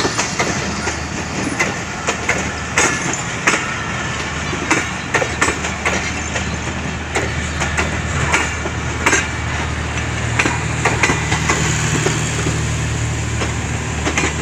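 Pakistan Express passenger coaches rolling past close by. Their wheels click sharply and irregularly over the rail joints above a steady rumble. A low hum grows louder about two-thirds of the way through.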